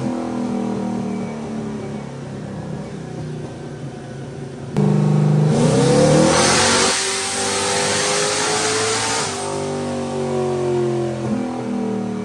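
Boosted race car engine running on a chassis dyno: about five seconds in it suddenly gets loud and revs up through a pull with a loud rushing noise, then the revs fall away as it comes off the throttle.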